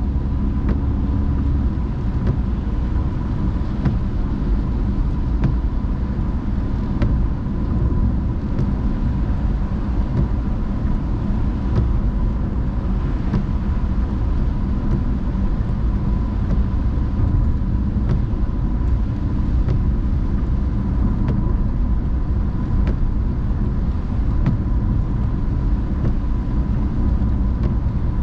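Steady low rumble of a car driving on wet roads, heard from inside the cabin: tyre and engine noise, with faint scattered ticks and a faint steady high tone over it.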